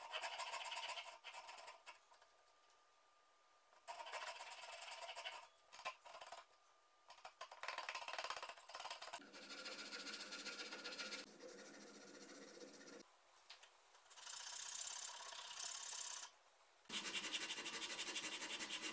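Hand tools working a wooden cue butt: a hand saw cutting in strokes at the start, then a chisel scraping and paring the wood in the middle, and sandpaper on a block rubbing back and forth near the end. The sound comes in separate runs of a few seconds each, starting and stopping abruptly.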